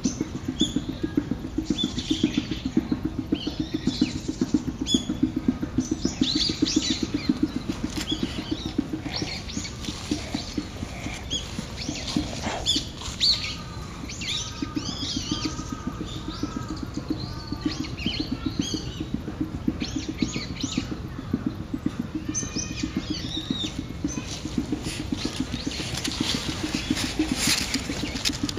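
Birds calling over and over with short chirps and arched, rising-and-falling calls, which the uploader takes for brown-eared bulbuls, over a steady, rapidly pulsing low patter.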